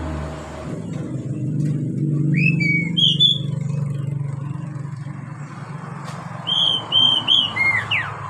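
Oriental magpie-robin singing clear whistled notes: one short phrase about two seconds in, then a quick run of several notes near the end that finishes in a falling slur. Under the first half a low engine-like drone swells and fades.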